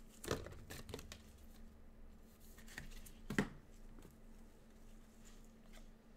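Trading cards being handled by gloved hands: a few short rustles and light clicks of card and plastic, the loudest about three and a half seconds in.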